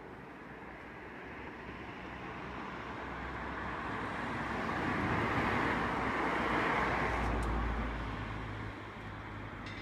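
A motor vehicle driving past on the road, its noise building up, loudest about five to seven seconds in, then fading away.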